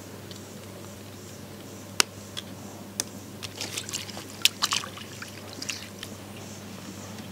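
Hands swishing and rinsing leaves in water in a steel bowl: small splashes and drips, busiest around the middle, with a few sharp clicks.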